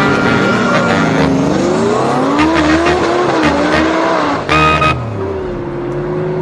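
Car engine revving in rising and falling pitch over a dense noise of tyres and speed, with a short loud burst about three-quarters of the way through, then a steady held pitch near the end.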